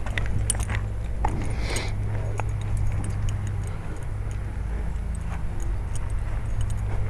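A steady low mechanical hum, with scattered light metallic clinks and a brief hiss about a second and a half in.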